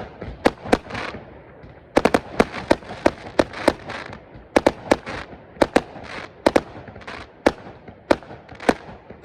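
Aerial fireworks going off: a rapid, irregular string of sharp bangs, often two or three close together, with crackle and echo between them.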